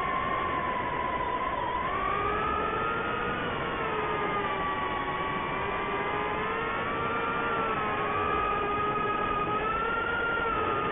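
ImmersionRC Vortex 150 Mini quadcopter's brushless motors and propellers whining in flight, the whine sliding down and back up in pitch several times as the throttle changes.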